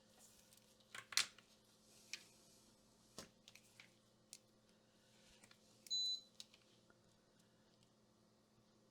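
A few light clicks and taps on the workbench, then one short, high electronic beep about six seconds in.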